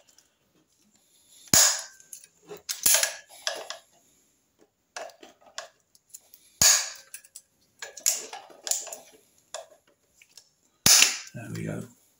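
Socket wrench tightening the stator fixings on a 1975 Triumph Trident T160 engine: about four sharp metallic clicks, each followed by a short rattling, with pauses in between.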